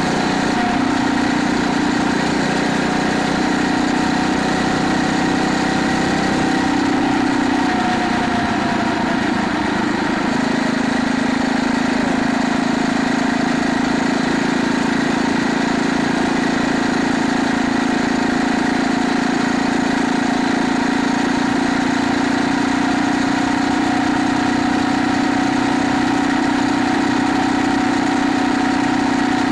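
Phatmoto Rover motorized bicycle's small four-stroke engine running steadily while riding. The engine note eases about eight seconds in, then settles at a slightly lower pitch for the rest of the ride.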